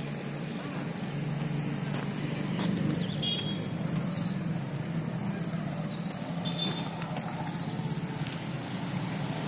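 A road vehicle's engine running with a steady low drone, with a couple of short clicks about two and three seconds in.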